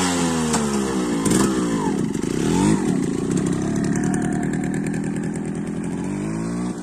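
Yamaha RX 135's two-stroke single-cylinder engine revving up and down in the first few seconds as the motorcycle pulls away, then running steadier and fading a little as it rides off.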